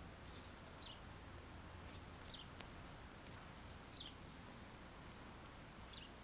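A bird's faint, short chirps, each falling in pitch, repeated every second or two over low tape hiss and hum.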